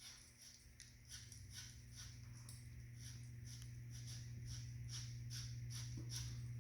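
Bicycle shift cable being pushed through its housing in short strokes, making faint ticking and rasping about three times a second over a steady low hum.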